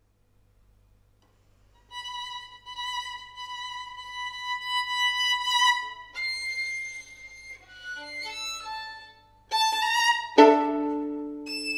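Solo violin, bowed. After about two seconds of near silence a long high note is held, then shorter notes follow, and near the end a fast upward run leads into a loud chord of two notes sounded together.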